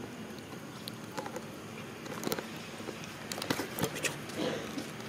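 Scattered light taps, clicks and rustles of macaques pawing at and brushing against a camera set on the ground, coming thicker in the second half.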